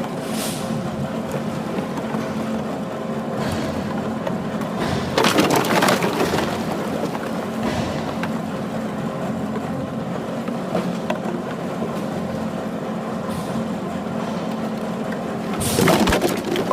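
Horizontal baler running with a steady mechanical hum while its ram presses PET plastic bottles, the bottles crackling and crunching as they crush. The crackling surges loudest about five seconds in and again near the end.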